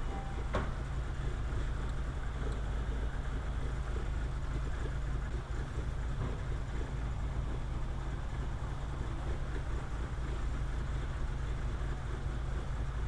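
VW 2.0L ABA four-cylinder engine running steadily, with a couple of faint clicks, one about half a second in and one around six seconds.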